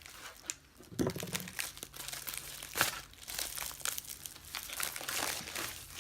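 Plastic packaging crinkling and rustling as a parcel is opened by hand with a knife, with irregular crackles, a few sharp ticks and short tearing sounds.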